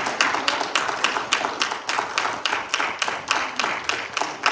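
Congregation applauding to welcome a speaker: a steady run of sharp hand claps, several a second.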